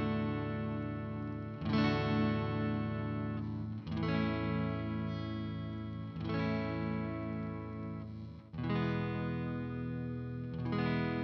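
The EwiCaster, a Stratocaster-style electric guitar, played in a clean tone through a Marshall amp: strummed chords, a new one struck about every two seconds and left to ring.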